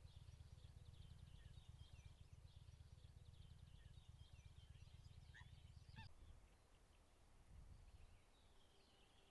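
Faint bird calls: many thin high chirps and trills, with a few sharper calls around five and a half to six seconds in, over a low rumble that drops away about six and a half seconds in.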